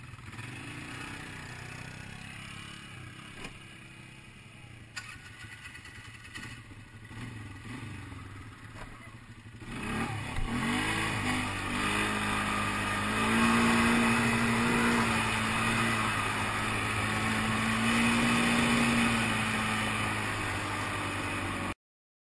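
ATV engine running. About ten seconds in it revs up sharply and holds high revs in two long stretches, then the sound cuts off abruptly near the end.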